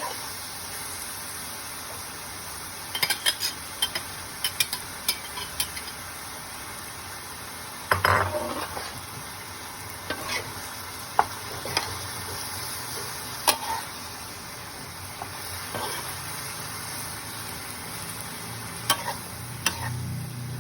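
Pork and morning glory sizzling in a hot pan as they are stir-fried: a steady frying hiss, broken by scattered sharp clinks and scrapes of a metal utensil against the pan, some in quick runs.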